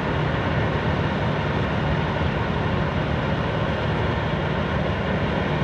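Steady low machinery drone under an even rushing noise, unbroken throughout, from heavy equipment at work.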